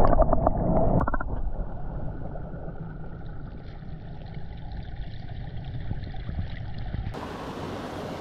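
Muffled stream water heard from underwater: splashing and bubbling for about the first second as a rainbow trout is held in the current, then a low steady rush of moving water. About seven seconds in it cuts to open-air stream and wind noise.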